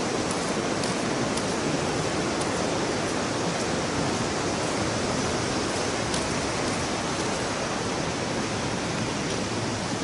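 Steady, even rush of Sogi Falls' water pouring heavily over the rock ledges.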